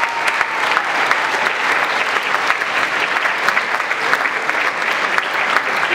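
Audience applauding: dense, steady clapping from many hands, greeting the announced overall winner.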